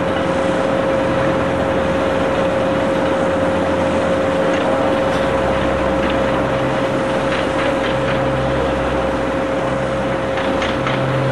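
An engine running steadily, with a low drone that swells now and then, under a constant steady hum and hiss.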